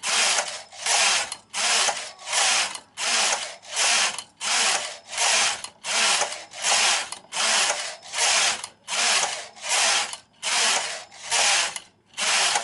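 Silver Reed SK160 mid-gauge knitting machine carriage pushed back and forth across the needle bed, knitting row after row: a rasping clatter for each pass, about two passes a second, stopping just at the end.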